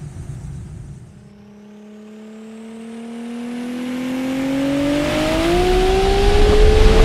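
Car engine revving up in one long, steady climb, rising in pitch and getting louder throughout, as a sound effect under an animated tachometer logo intro.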